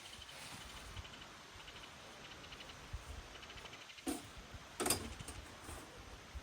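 Faint outdoor nature ambience: short trills of rapid high chirps from a small animal repeat every second or so, and two sharp knocks come about four and five seconds in.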